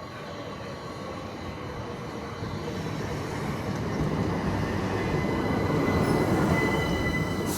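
Train approaching and getting steadily louder, with a faint falling tone early on and a steady high whine near the end.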